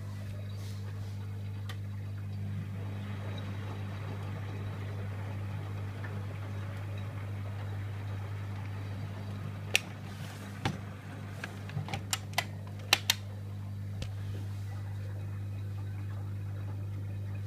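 Privileg Multispar 5110 washing machine with a steady low hum. A quick run of sharp clicks comes about ten to thirteen seconds in.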